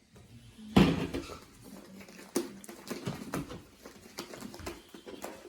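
Homemade slime being handled in a bowl: a sharp knock about a second in, then a run of sticky clicks, smacks and squelches.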